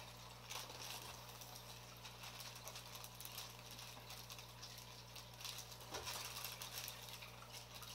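Faint bubbling and crackling of an aquarium air stone's bubbles breaking at the water surface, over a steady low hum.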